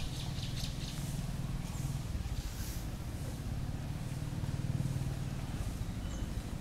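A steady low hum, with faint light clicks over it in the first few seconds.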